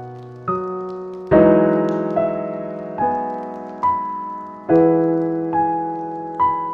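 Slow, calm solo piano: single notes and chords struck roughly once a second, each left to ring and fade, with faint fireplace crackling underneath.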